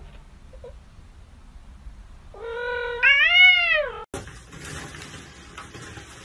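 A cat gives one long meow, starting level and then rising and falling in pitch.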